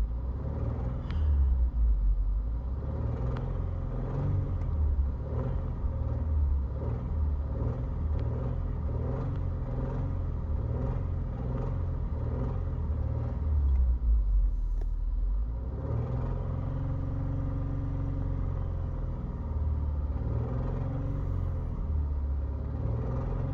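Subaru flat-four engine idling warm, with a faint regularly repeating tick over the low engine sound: an intermittent noise the owner cannot identify, still there after three short block swaps.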